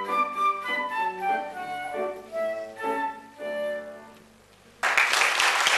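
Flute playing a melody of short notes, ending on a held note that fades out about four seconds in. Shortly after, an audience starts applauding.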